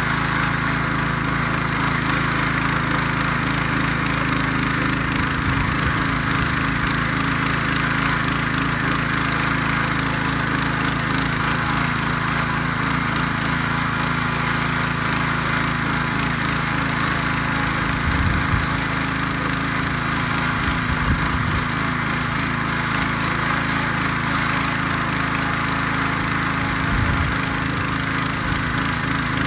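Ruris DAC 7000 ACC2 motor hoe's engine running steadily under load while its rotary tines churn through dry garden soil. A few brief low thumps come in the second half.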